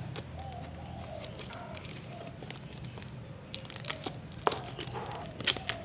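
A shipping package being opened by hand: wrapping crinkling and tearing, with a few sharp clicks and snaps, the loudest about four and a half and five and a half seconds in.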